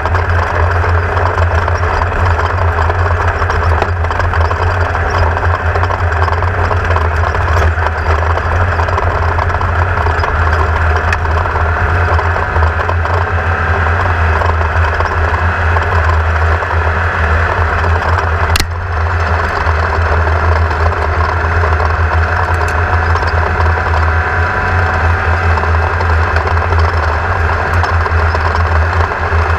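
Class 1600 off-road race car's engine running steadily as picked up by an onboard camera, a strong low drone under a dense mechanical rush with no big changes in revs. One sharp click about two-thirds of the way through.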